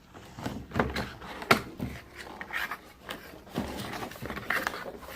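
Small objects being handled and set down on a hard surface: several sharp knocks, the loudest about a second and a half in, between short rustling sounds.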